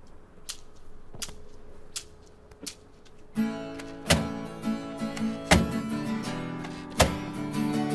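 Four light clicks in even time, then a band comes in at once: a strummed electric guitar with a snare and drum hitting heavily on the strong beats.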